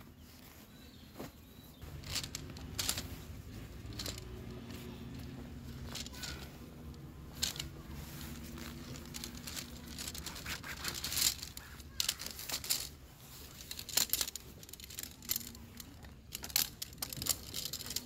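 Mountain Hardwear EV3 tent fabric rustling and crinkling in irregular bursts as the tent body is pulled out of its stuff sack and handled on a groundsheet. Sharper clicks and rattles come in the last couple of seconds as the tent poles are taken out.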